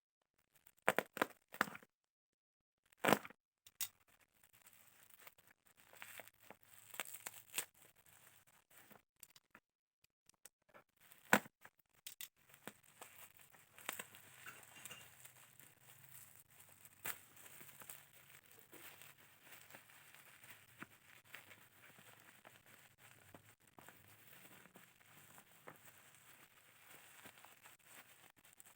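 Parcel packaging being torn open and unwrapped by hand: tearing, crinkling and rustling of the wrapping. There are a few sharp cracks in the first few seconds and another about eleven seconds in, then steady crackly rustling.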